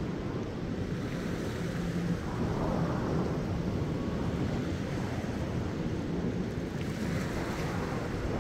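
Small ocean waves lapping and washing over a shallow rock reef. A breeze buffets the microphone as a steady low rumble underneath.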